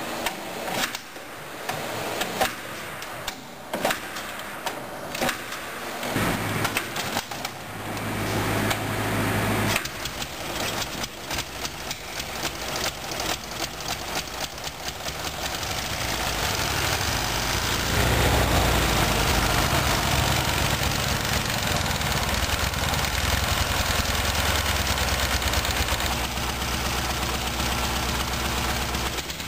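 1958 IMZ M-72M's 750 cc side-valve flat-twin engine being kick-started after 18 years idle. It gives separate knocks and coughs for the first few seconds, catches and fires unevenly, then settles into steady, louder running from about two-thirds of the way in. The owner says it runs on one cylinder only, the other having almost no compression.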